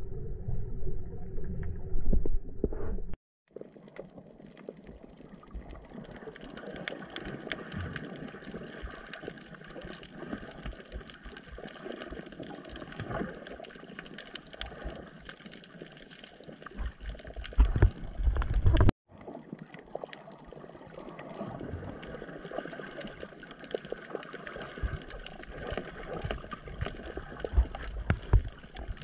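Underwater sound picked up by the camera: a muffled low rumble at first, then, after an edit, an even water hiss full of fine crackling clicks, with a few louder low surges of water movement. The hiss breaks off twice for an instant at edits.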